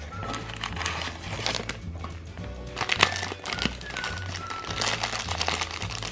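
Black foil blind bag crinkling as hands tear it open and pull out a small figure, with one sharper snap about three seconds in, over background music with a steady bass line.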